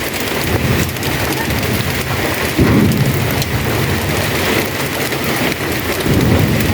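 Heavy rain falling steadily, with two deep low rumbles swelling up, one about two and a half seconds in and one near the end.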